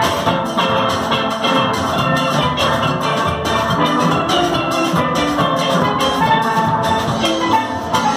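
Steel band playing: several steel pans struck together, ringing out chords and melody over a steady beat.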